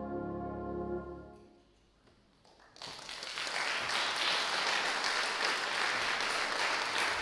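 Brass band holding its final sustained chord, which ends about a second in and dies away in the reverberant hall. After a brief silence, audience applause starts near the three-second mark and builds to a steady clapping.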